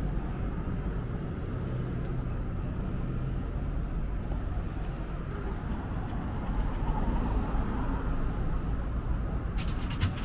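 Wagyu gacha vending machine dispensing its purchase: a steady low rumble, then a few sharp clicks near the end as the wrapped package arrives in the pickup bay.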